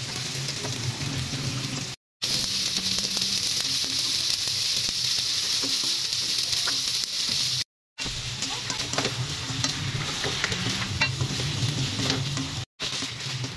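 Garlic, then sliced onions and pork pieces, sizzling in hot oil in a frying pan, with short scraping clicks as they are stirred. The steady sizzle breaks off briefly three times between shots.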